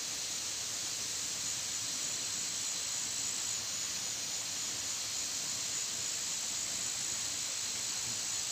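Steady, high-pitched chorus of insects in dense vegetation, an unbroken hiss holding a constant level.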